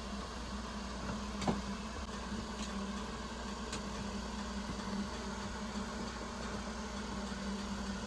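Truck engine running steadily with a low, even hum; a single sharp click about a second and a half in.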